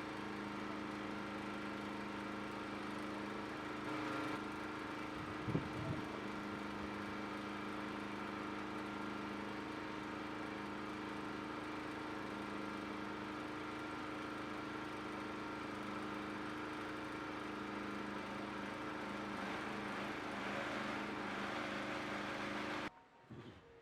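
Steady mechanical hum holding several fixed tones, with a short low sound about five and a half seconds in; the hum cuts off suddenly near the end.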